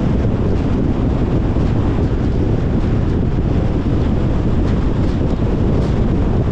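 Steady rumble of wind and tyre noise from a moving Tesla Model Y, an electric car with no engine sound, heaviest in the low end. Faint light ticks come through now and then.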